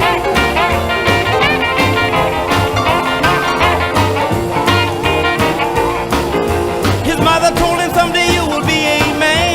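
Upbeat swing or rock-and-roll style music with a steady beat, guitar and a singing voice.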